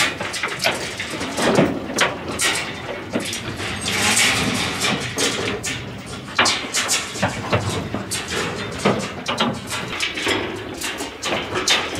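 Irregular knocks and clanks of metal from the steel livestock trailers of a cattle road train.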